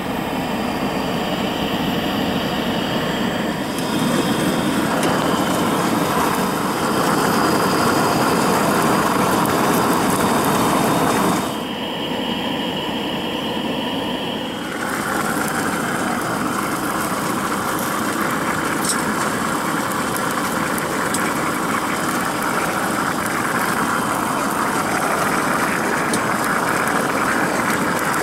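Gas camp stove burner running with a steady rushing noise under the steaming pot, its tone shifting abruptly a few times where the footage is cut.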